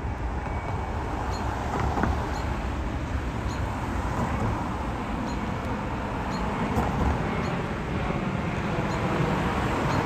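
Steady road traffic noise with a heavy low rumble. Faint, short high chirps sound now and then over it.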